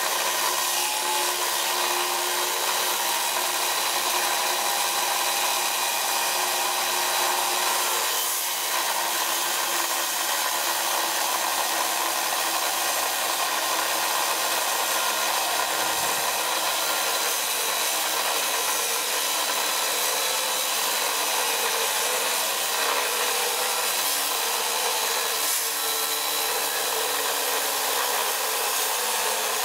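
Bosch 9-inch angle grinder cutting through half-inch (12 mm) steel plate with a cut-off disc: a steady whine from the motor over the hiss of the disc grinding the steel, unbroken throughout.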